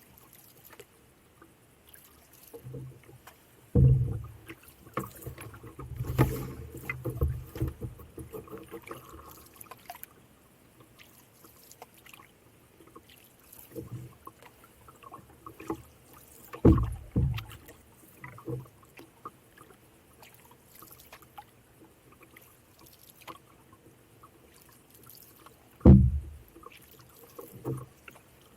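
Canoe being paddled, with faint splashing and a few loud low thumps and knocks on the canoe, the loudest about four seconds in, around seventeen seconds and near the end.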